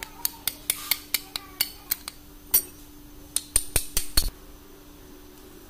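Sharp metallic clinks from oily engine parts and hand tools being handled and knocked together: a quick run of about four a second for the first two seconds, one more a little later, then a final close cluster about four seconds in, over a faint steady hum.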